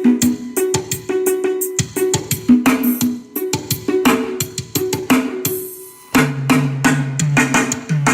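Dance music with a drum beat and percussion played loud through a paredão speaker wall during a sound check. The music thins out for a moment about six seconds in, then comes back with a deep bass line under the beat.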